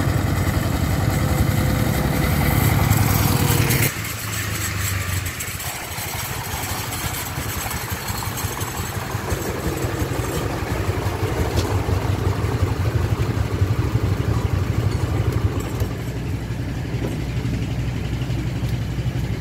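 Single-cylinder diesel engine of a homemade three-wheel công nông farm truck running steadily. It is louder for the first four seconds, then drops suddenly to a quieter, even run.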